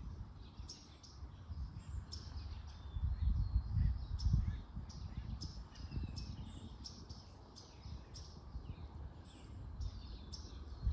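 Small birds chirping outdoors, a steady run of short high falling calls repeated every half second or so, over a low rumble that swells about three seconds in.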